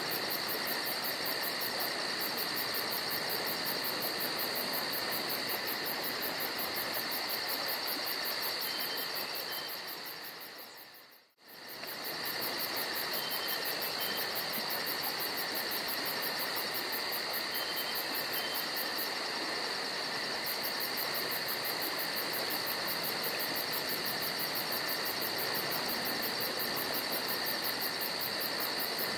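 Steady chorus of insects, a continuous high trill with a fast pulse at the top, over an even background hiss. The sound briefly fades out and comes back about eleven seconds in.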